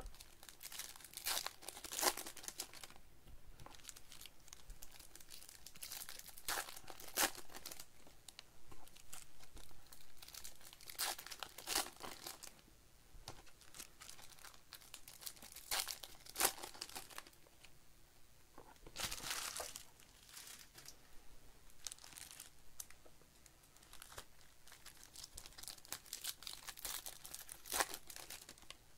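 Wrappers of 2024 Bowman baseball card packs being torn open and crinkled by hand, with a sharp rip every few seconds and lighter crinkling in between.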